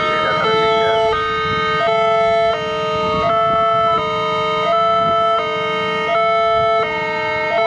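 Electronic level-crossing warning alarm sounding: a two-note chime alternating steadily about every 0.7 s, signalling that a train is approaching. A low traffic rumble lies beneath it.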